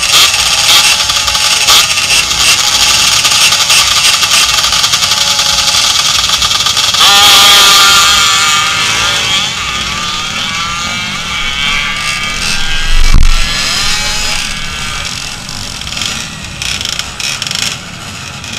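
Motorcycle engines running close by, with a rising rev about seven seconds in that tapers off over the next few seconds, and a single thump a little past the middle.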